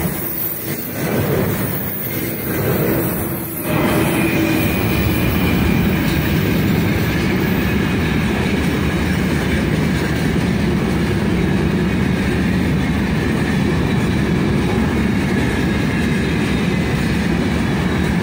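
Freight train wagons rolling past close by: wheels running on the rails with an uneven rhythmic clatter at first, turning into a steadier, fuller rolling noise about four seconds in.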